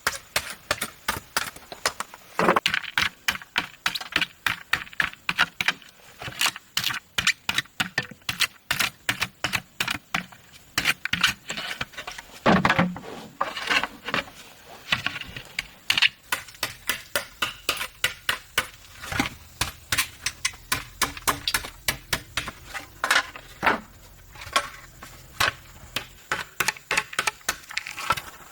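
Rapid, irregular clicking and clattering of hard objects, several knocks a second, with a louder, deeper knock about halfway through.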